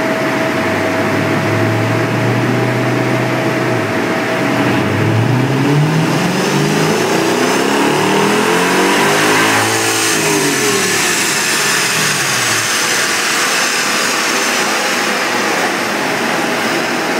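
Mercedes CLS 55 AMG's supercharged 5.4-litre V8 running on a chassis dyno: it holds steady, then from about four seconds in climbs steadily in pitch to a peak, and winds back down a few seconds later. A high whine rises and falls with it as the driven wheels spin the dyno rollers in a burnout.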